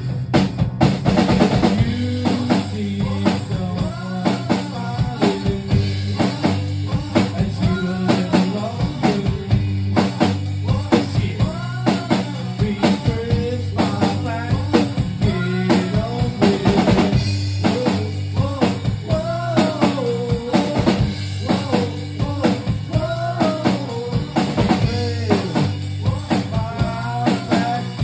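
Band music playing with a backing track: a drum kit keeps a steady beat of kick, snare and rimshots over sustained low bass notes, while a man sings a melody into a microphone.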